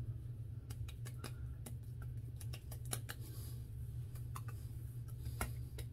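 Fingertips patting hydrating gel onto the face and neck: a run of irregular quick taps, over a steady low hum.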